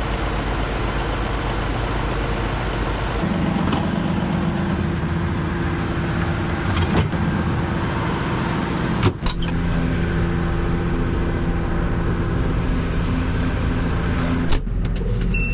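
Tractor engine running steadily under work. Its note shifts abruptly about three, nine and fourteen and a half seconds in, each change marked by a short click.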